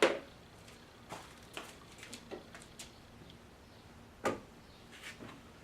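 Irregular clicks and knocks of hard objects being handled, with a sharp knock at the start and another about four seconds in, and fainter ticks between.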